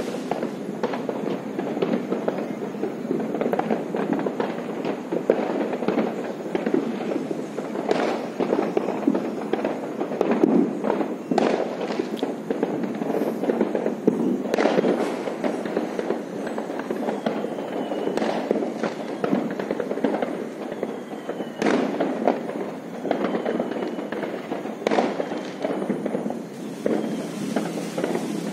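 Fireworks and firecrackers going off in many places at once, a continuous crackle with sharper, louder bangs every few seconds. A few faint, short falling whistles come in the second half.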